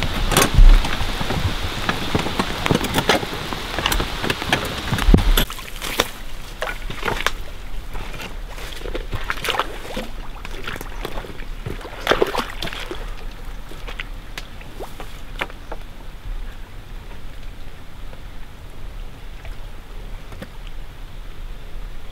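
Rain pattering on the forest floor with clicks of metal traps and gear being handled. About five seconds in this gives way to quieter ambience with scattered knocks and splashes as a wooden pole is pushed into shallow pond water, the largest splash near the middle.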